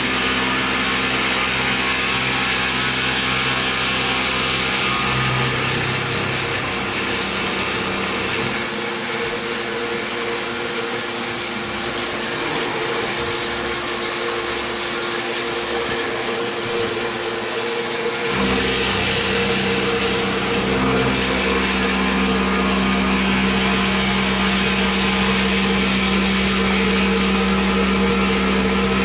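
Milling machine side-roughing a metal block with a long end mill under flood coolant: steady spindle and cutting noise. The low hum drops away for a stretch in the middle and comes back stronger about eighteen seconds in.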